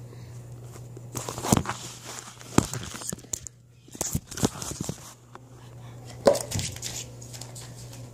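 Handling noise from a camera being moved and set down on the floor: scattered knocks and rubbing against the microphone, over a low steady hum.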